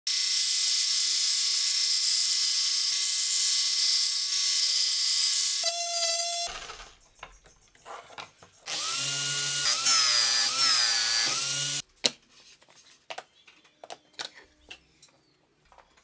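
Band saw running and cutting a pine board for about six seconds, then, after a short quieter gap with clicks, a small scroll saw cutting for about three seconds, its pitch wavering up and down as the wood is fed. The last four seconds hold only light clicks and knocks of wooden pieces being handled.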